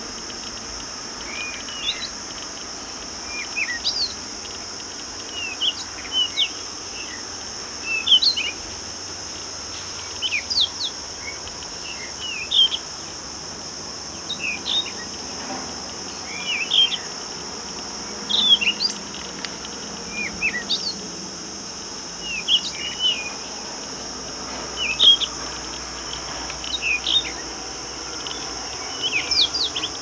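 Birds chirping in short phrases of quick rising and falling whistles, about one phrase every two seconds, over a steady high-pitched drone of insects.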